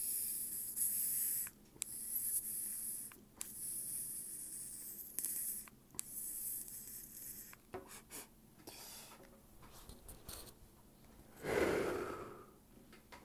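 A vape cartridge pen being hit: a hiss of air drawn through it in several stretches over about seven seconds, then a breathy exhale near the end.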